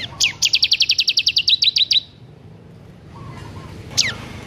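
Bar-winged prinia (ciblek) singing: a sharp downward-sweeping note, then a fast high trill of about ten notes a second lasting under two seconds, and a second sweeping note about four seconds in.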